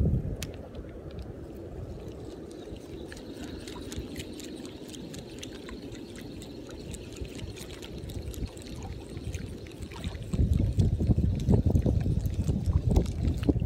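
Shallow river-mouth water lapping and trickling at the bank, a steady wash with scattered small clicks. It is joined by a louder, gusty low rumble from about ten seconds in.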